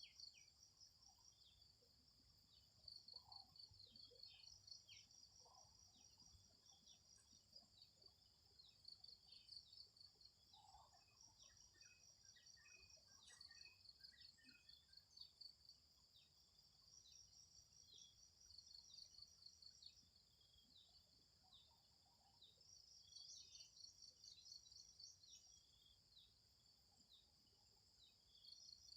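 Faint forest ambience: insects trilling high and fast in pulsed trains that start and stop every few seconds, with scattered faint bird chirps.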